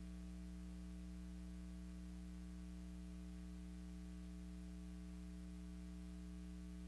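Steady electrical mains hum with a faint hiss. It is the only sound on the track of a silent film, which has no recorded sound of its own.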